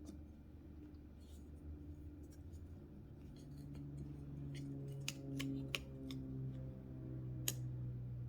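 Small metal parts of a Damned Designs Banshee folding knife clicking as it is put back together by hand: a few sharp clicks in the second half, the loudest near the end, over a low steady hum.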